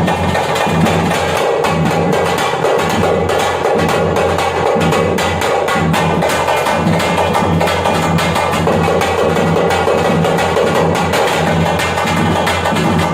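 Thappattam drumming: parai frame drums beaten with sticks in a fast, dense, unbroken rhythm.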